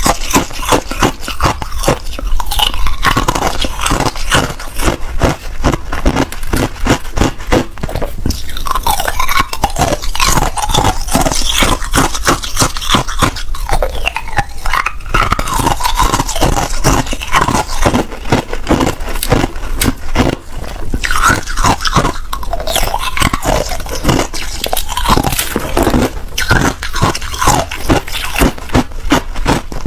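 Ice being bitten and chewed close to the microphone: rapid, continuous crunching of hard ice.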